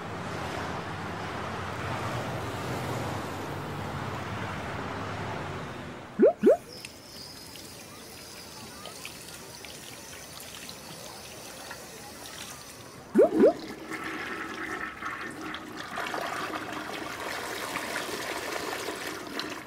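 Animation sound effects: a quick pair of rising bloop tones about six seconds in and again about thirteen seconds in, each followed by a few seconds of steady rushing noise. The later stretches are water running through pipes, with a gush like a toilet flush near the end.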